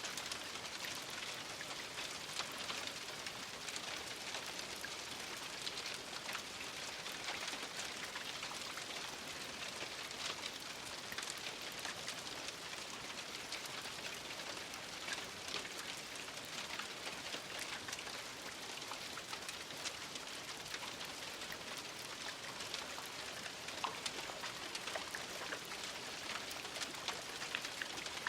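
Steady rain falling, a constant hiss with many small drop impacts.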